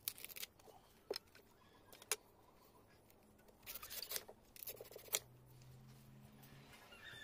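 Knife cutting and shaving the fibrous husk of a tender green coconut: a few sharp chops about a second apart, then two short bursts of scraping strokes about four and five seconds in.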